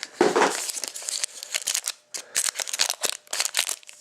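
Plastic or foil wrapping on a trading-card pack crinkling and tearing as it is handled and opened, with an irregular run of crackles and a louder rustle about half a second in.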